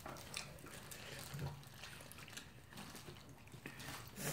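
Faint chewing and wet mouth sounds of people eating sauced fried chicken by hand, with scattered small clicks.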